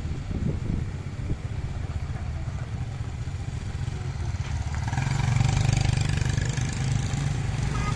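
Heavy construction machinery's diesel engine running, from an excavator or dump truck, growing louder about five seconds in as it works harder.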